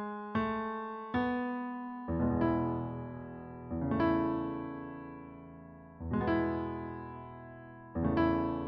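Solo piano playing the opening bars of a musical-theatre accompaniment with no voice. A few single notes come first, then full chords struck about every two seconds, each ringing out and fading.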